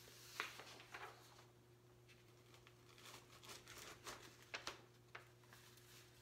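Faint rustling and light taps of paper being handled on a wooden bench, and a sheet being peeled off an inked plywood woodcut block where the too-dry ink has stuck to the paper, over a steady low hum.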